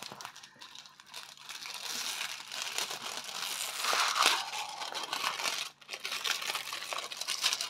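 Plastic crinkling and rustling as a diamond painting canvas and its wrapping are handled and pressed flat, loudest about four seconds in.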